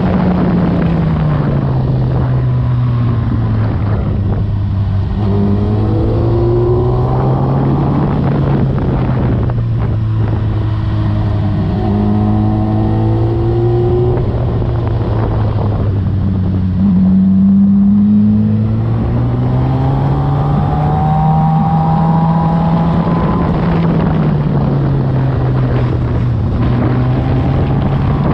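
Suzuki GSX-R sportbike's inline-four engine heard from onboard while riding through bends: the engine note falls in the first few seconds, holds low for a long stretch, surges louder briefly about seventeen seconds in, then climbs again and eases off near the end.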